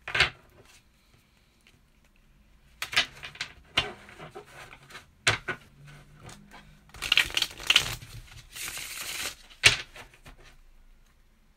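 A tarot deck being shuffled by hand. Scattered rustles and slaps of card stock come first, then a longer fluttering riffle of cards flicking together from about seven to nine seconds in, and a sharp tap as the deck is squared on the table just after.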